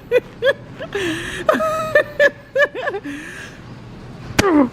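A person laughing in short, quick pulses about three a second, with some drawn-out voice sounds between, and a sharp click near the end.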